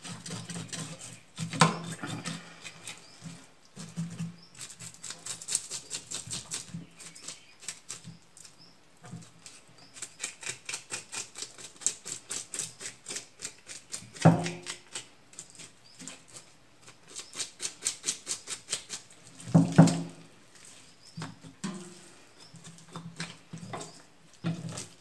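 A knife scraping the scales off a carp on a wooden cutting board, in quick repeated strokes several a second. A few louder knocks stand out among the strokes.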